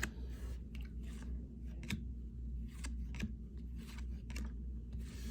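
Trading cards and their pack wrappers being handled: scattered short snaps and rustles as cards are slid and flipped, over a steady low hum.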